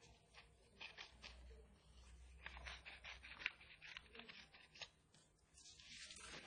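Scissors cutting paper, faint, as a series of short, irregular snips while the paper is turned.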